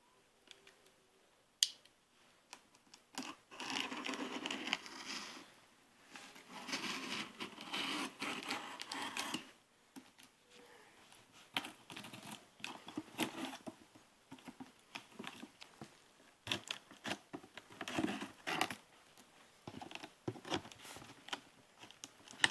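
A shipping package being torn open by hand: tearing and crinkling of packaging material in irregular stretches, loudest a few seconds in, then scattered rustles and clicks.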